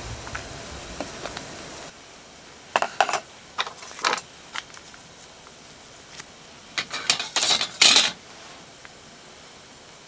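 Eating utensils clinking and scraping against dishes in several short bursts, the loudest and longest cluster about three quarters of the way through.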